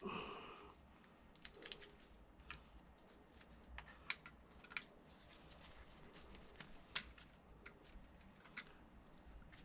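Faint, irregular small clicks and taps of a hand tool and screws on metal scooter parts as screws are driven back in, with one louder click about seven seconds in.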